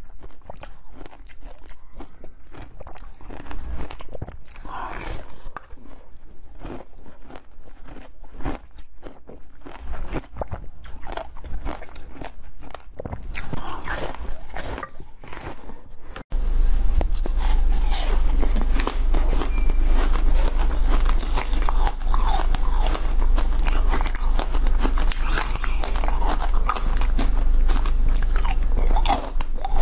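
Close-miked eating sounds: crunchy bites and chewing of a clear slab studded with pomegranate seeds. About halfway through the sound changes abruptly to louder, crisper biting and chewing of small coloured disc-shaped sweets over a steady low hum.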